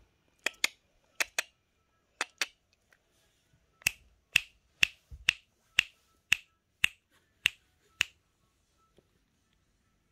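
Finger snaps: three quick pairs, then a run of nine single snaps about two a second that stops about two seconds before the end.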